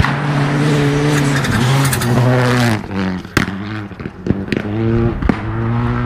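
Rally car engine running hard on a gravel stage. Its pitch holds steady, drops about halfway through, then climbs again. Several sharp cracks come in the second half.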